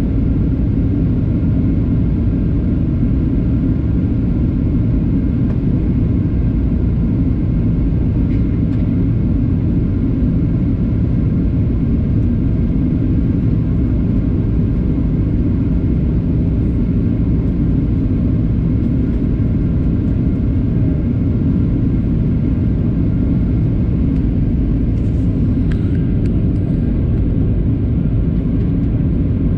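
Steady cabin noise inside a jet airliner in flight: a deep, even rumble of engines and rushing air, with a faint steady whine above it.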